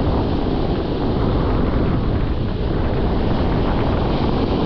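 Wind blowing across the microphone over the wash of breaking surf, a steady rush of noise.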